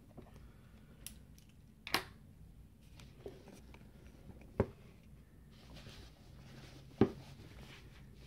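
A few sharp clicks and knocks, four in all and the loudest near the end, from the stainless Smith & Wesson 500 revolver being handled on a fleece mat as its reassembly is finished.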